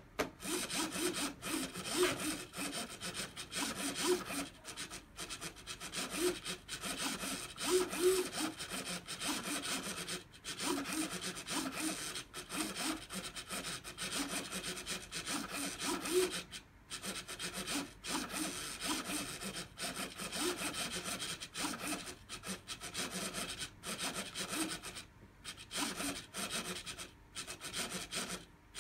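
Steel ball rolling and rattling in a clear plastic beam channel, a continuous scraping noise full of small clicks, with short rising and falling whines from the small servo motor that keeps tilting the beam as the PID controller balances the ball.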